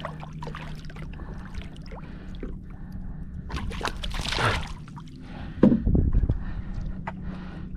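Water splashing and sloshing at the side of a small boat as a hooked catfish is held in the water, with a rushing swell about four seconds in and the loudest splash about six seconds in.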